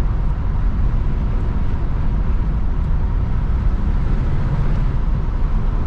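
Classic car being driven, its engine and road noise making a steady, loud, low rumble.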